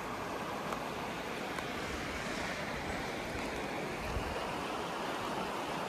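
Small river rushing: a steady, even wash of running water.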